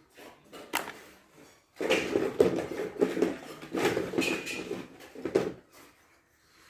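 Plastic toys and their plastic packaging being handled: a sharp click, then several seconds of loud rustling and clattering that stops near the end.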